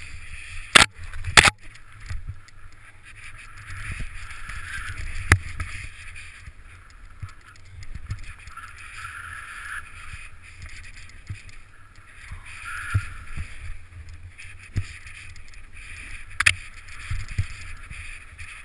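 Skiing or riding through deep powder snow: a steady hiss of snow sliding, over a low rumble, with a few sharp knocks, two close together about a second in and single ones near five and sixteen seconds.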